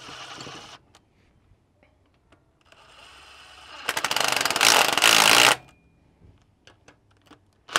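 Makita 18V cordless impact wrench running in the spindle bolts. It spins briefly, then from about three seconds in it makes a longer run that becomes loud rapid hammering for about a second and a half as the bolt seats, then stops.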